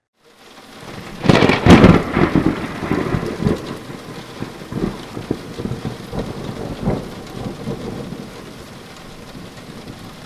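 Thunderclap over steady rain: a loud crack about a second and a half in, then rolling rumbles that slowly die away while the rain hiss goes on.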